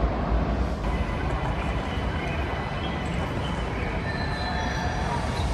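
Steady low rumble of vehicle noise, with faint high-pitched squealing tones coming in about a second in.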